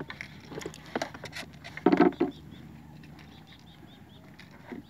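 A few scattered clicks and knocks, the loudest a short thump about two seconds in, then a small bird chirping a run of quick high notes, about three a second.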